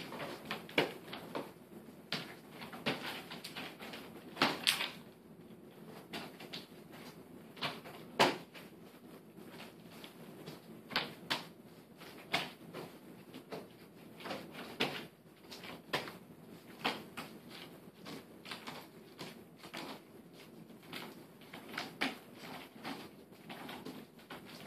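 Nunchucks being swung and caught by hand: irregular sharp knocks and clacks from the sticks and their chain, some louder than others.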